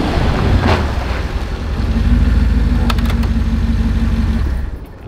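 Mercedes-Benz G55 AMG's 5.5-litre supercharged V8 idling steadily, with a couple of sharp door clicks about three seconds in. The engine sound drops away near the end.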